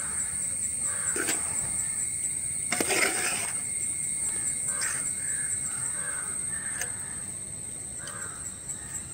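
Steel spoon stirring wet, syrup-soaked boondi in an aluminium pot, with scraping and a few clinks of the spoon against the pot. A steady high-pitched tone runs underneath.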